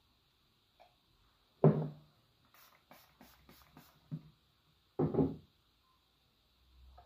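A small metal spoon knocking against a stainless steel bowl while turmeric powder is shaken off it: two louder knocks about three seconds apart, with a quick run of five or so light ticks between them.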